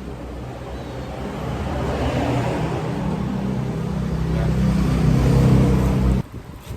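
A vehicle engine running and speeding up, growing louder and higher toward the end, then cut off suddenly about six seconds in.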